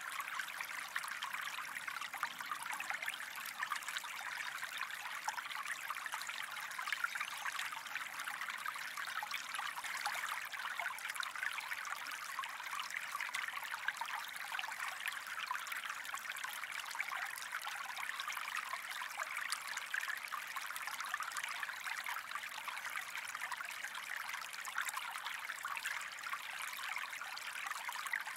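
Gentle stream of water flowing steadily, a continuous rushing trickle with no breaks.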